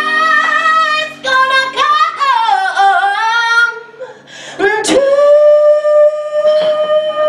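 A woman singing into a handheld microphone, her melody sliding up and down. About four seconds in the voice breaks off briefly, then she holds one long steady note.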